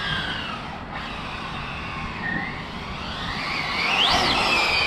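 Twin electric motors of an Arrma Felony RC car whining as it drives on asphalt, over a steady hiss. The whine fades about a second in, then climbs sharply in pitch as the car is throttled up near the end and falls away again.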